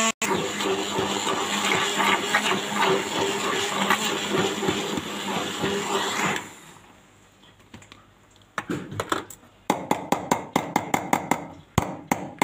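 Stick blender running steadily in a small steel cup, puréeing tomato, ginger and garlic with a little water into a paste; it stops about six seconds in. Near the end a spoon clinks and scrapes quickly against the steel cup.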